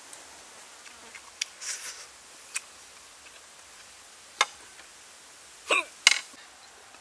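Close-miked eating sounds: a man chewing, with scattered sharp mouth clicks and smacks, about five in all, the loudest two close together near the end.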